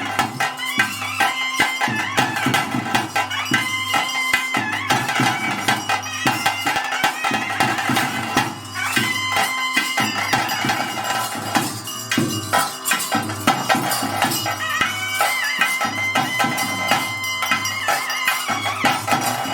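Traditional ritual music for a bhuta kola: a reed pipe plays a stepping melody over a steady drone, with a busy beat of drums and jingling percussion.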